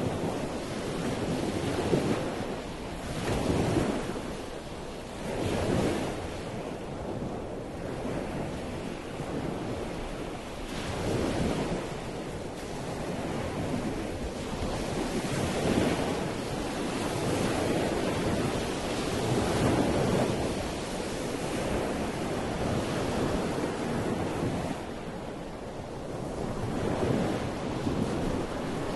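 Outdoor rushing noise, swelling and fading every two to three seconds, with no voices or tones.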